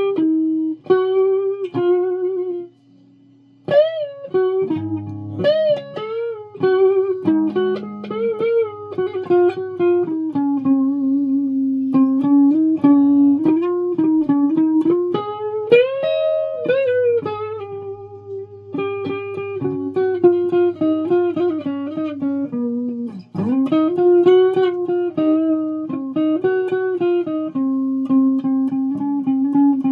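Guitar played one note at a time in a slow melody, with notes bent and wavering in pitch.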